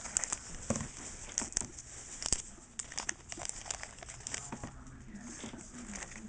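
Foil Pokémon booster pack wrapper crinkling and being torn open, with irregular sharp crackles and clicks as it is handled.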